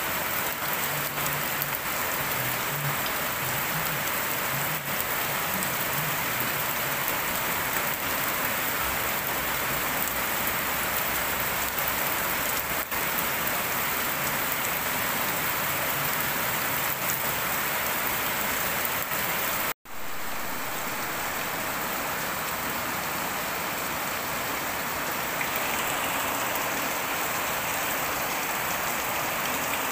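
Steady rain falling on wet concrete. It breaks off for an instant about twenty seconds in, then carries on.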